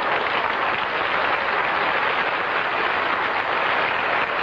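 Studio audience applauding steadily, a dense clatter of many hands.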